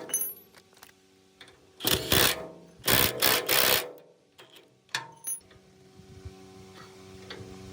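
Hand-tool work on metal machine parts: two quick strokes, then three more a second later, and a single click. A faint steady hum slowly gets louder near the end.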